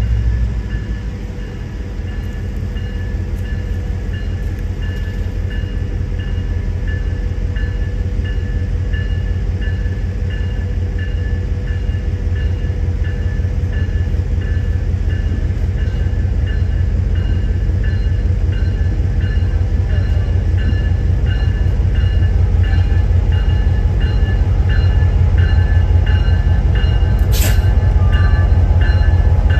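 EMD GP38 diesel locomotive's 16-cylinder two-stroke engine running at low power as it creeps closer, its rumble growing louder, while a bell rings steadily. A brief sharp hiss comes near the end.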